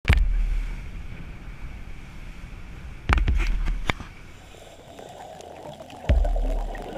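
Muffled low rumbling surges, three of them, with sharp knocks: wind and boat noise on a dive boat's open deck. A steadier hiss joins in during the second half.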